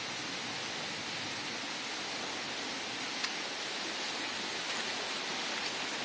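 Steady rushing of a nearby stream, an even hiss of flowing water, with one faint click about three seconds in.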